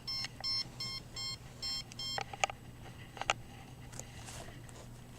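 A rapid run of short electronic beeps in an alarm-like pattern, stopping about two seconds in, followed by a few faint clicks.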